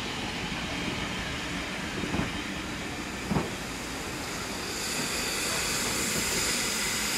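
Steam train running slowly past: a steady rumble from the coaches with a couple of wheel knocks on the rail joints, then a hiss of steam that grows louder about five seconds in as the tank locomotive draws level.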